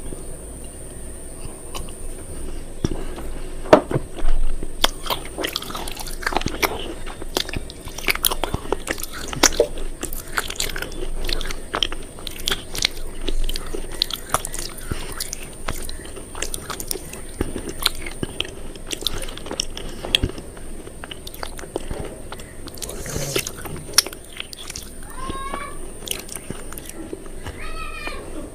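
Something crisp being crunched, an irregular run of sharp cracks and crackles, with two short squeaky sounds near the end.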